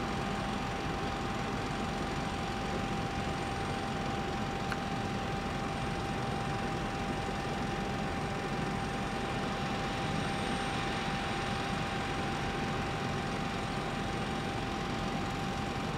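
Steady, unchanging machinery drone with one constant high whine running through it, the ground noise around a parked Boeing 767.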